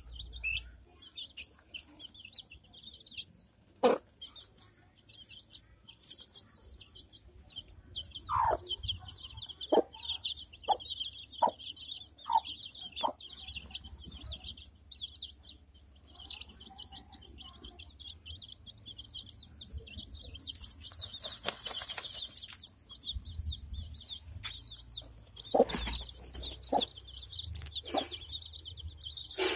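Chicks cheeping constantly in a high chatter while a dust-bathing hen gives short low clucks now and then, in two clusters. About two-thirds of the way through comes a brief loud rustling burst as the hen works dust through her feathers.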